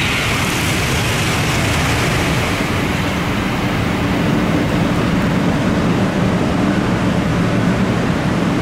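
N700-series Shinkansen running through the station at speed in heavy rain: a loud, steady rush of air, wheels and spray. A high hiss fades over the first second or two, and a low hum comes in about three seconds in.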